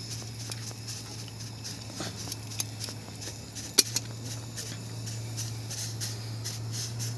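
Fish grilling on the wire grate of a portable gas grill: scattered small crackles and pops over a faint hiss, with a steady low hum underneath.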